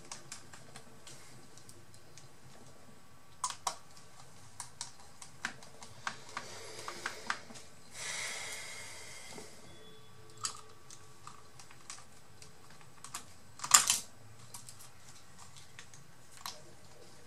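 Small scattered clicks and taps of screws, a small screwdriver and plastic and metal parts being handled on an opened laptop's chassis during reassembly. A brief rustle comes about eight seconds in and a louder clatter of clicks at about fourteen seconds.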